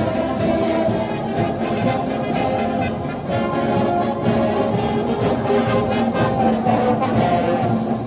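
High school marching band playing, brass instruments such as trombones and trumpets carrying the tune over a steady drum beat.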